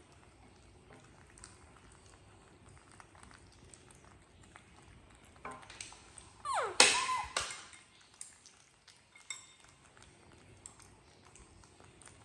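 Small clicks and clinks of a metal spoon against a ceramic bowl while baby monkeys are fed rice. A little past halfway there is one brief, loud, shrill squeal that swoops in pitch, from a baby monkey.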